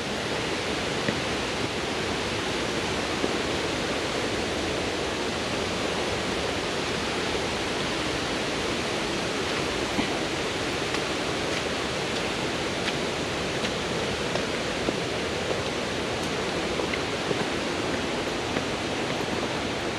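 Steady rush of creek water tumbling over rocks, with a few faint ticks.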